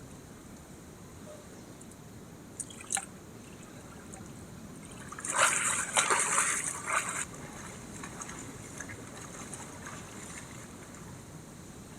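Water pouring and splashing for about two seconds, preceded by a couple of short clicks.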